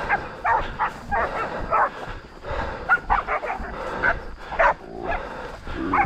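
A pack of pig-hunting dogs barking in quick, irregular barks as they bail a feral pig, holding it at bay.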